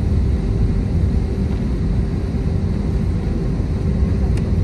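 Airbus A320's IAE V2500 turbofan engines running at low power, heard from inside the cabin over the wing as the jet rolls slowly on the runway. It is a steady, loud rumble with a constant hum.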